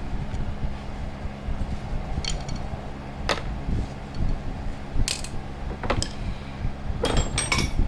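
Hand tools clinking and knocking against metal in a handful of separate sharp strikes, several of them close together near the end, over the steady hum of a cooling fan.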